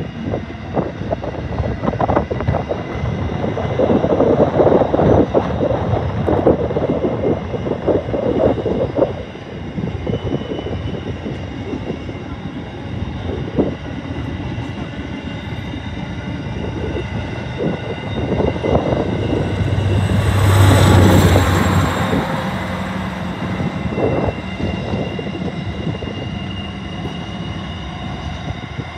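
Freight train of covered hopper wagons rolling past: steady clatter of steel wheels on the rails, with faint high steady tones and a louder rush about two-thirds through.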